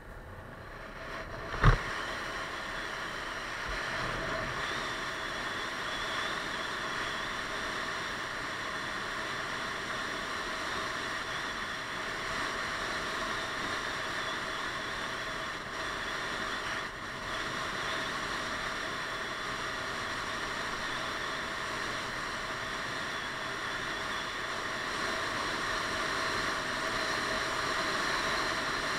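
Wind rush and road noise on a helmet-mounted camera riding a Piaggio Beverly 500 scooter, with the scooter's single-cylinder engine running underneath. It grows louder over the first few seconds as the scooter picks up speed, then holds steady at cruising speed. A single sharp knock about two seconds in.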